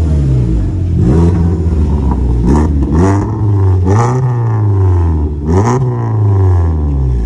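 Volkswagen Vento with a loud exhaust being revved while stationary: the engine note rises and falls in several quick blips, with sharp cracks at the top of some revs.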